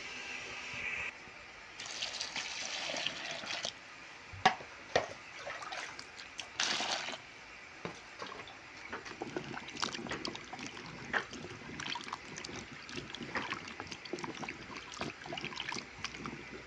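Water sloshing and splashing in a plastic basin as a hand stirs and rinses diced cubes of food, with scattered small clicks and splashes. There are two sharp knocks about four and a half to five seconds in, and a steady hiss in the first second.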